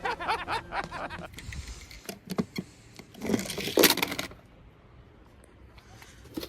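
Toy cars being handled: a run of clicks and clattering, loudest about three to four seconds in.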